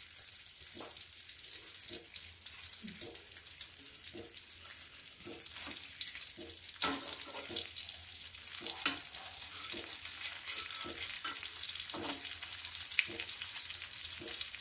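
Semolina-coated fish shallow-frying in hot oil in a pan: a steady sizzle with frequent small crackles and pops.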